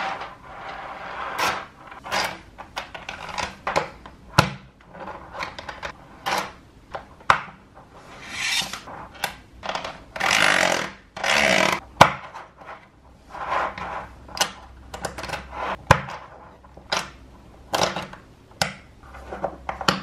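Small magnetic balls clicking and clacking together as strands are snapped side by side into a flat sheet, with short rubs as the beads slide over the tabletop. About ten seconds in there is a longer scraping rub while a plastic card is pushed along the rows.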